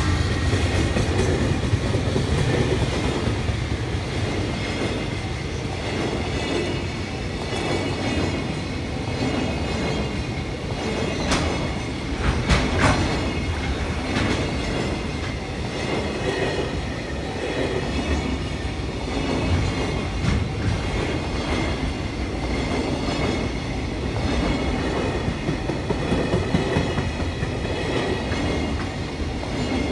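Long freight train of container wagons rolling past: steady wheel rumble with an uneven clatter over the rail joints, and a couple of sharp metallic clanks about twelve seconds in. The level-crossing warning bell rings faintly throughout.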